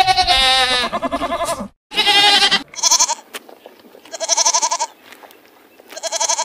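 Goats bleating: a long, wavering bleat at the start, followed by about four shorter bleats spaced a second or so apart.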